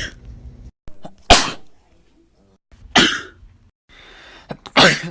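A person sneezing: three sharp, loud sneezes about a second and a half apart.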